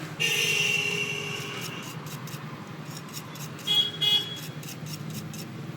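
Vehicle horn honking: one long toot of almost two seconds, then two short toots a couple of seconds later.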